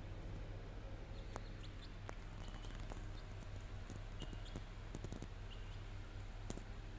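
Scattered soft clicks and taps as young chickens peck and step on a tiled floor, with a few brief high peeps from the young birds.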